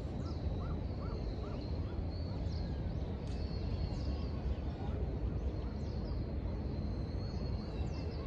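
Outdoor city-park ambience: a steady low rumble of city traffic under small birds chirping high and often. About half a second in, one bird gives a quick run of about six short, lower notes.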